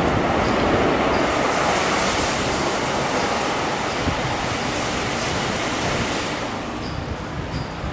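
WashTec EasyWash rollover car wash running, its rotating brushes scrubbing a car under water spray: a steady rushing wash that eases slightly near the end.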